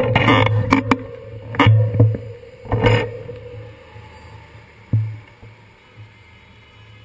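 City street traffic at an intersection: taxis, cars and a bus driving past over a steady low engine hum. Several sharp knocks come in the first three seconds, one more about five seconds in, and the noise dies down toward the end.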